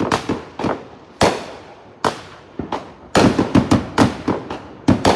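Fireworks exploding: a string of sharp, irregular bangs, about twenty in all, with a quick rapid-fire run of them about three seconds in.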